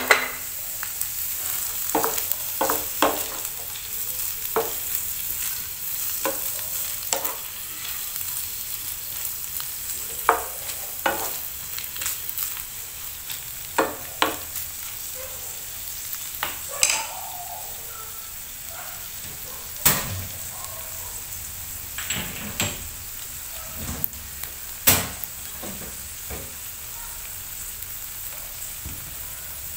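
Shredded chicken strips frying in butter in a nonstick frying pan, a steady sizzle, while a wooden spatula stirs them, scraping and knocking against the pan now and then. The sharpest knocks come about two-thirds of the way through.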